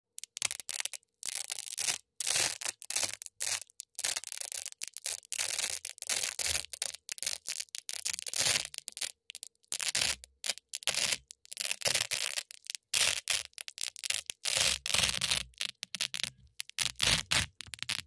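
Hook-and-loop fastener (Velcro) tape being peeled apart by hand, the fuzzy loop strip ripped off the rough hook strip in many short crunchy rips with brief pauses between them.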